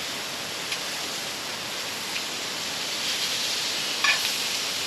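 Beef sirloin sizzling on a hot grill: a steady frying hiss with a few sharp pops, the loudest about four seconds in.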